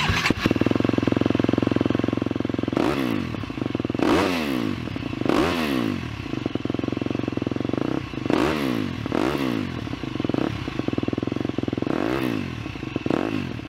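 Motocross bike engine running and being revved up and back down several times, its pitch climbing and falling with each rev.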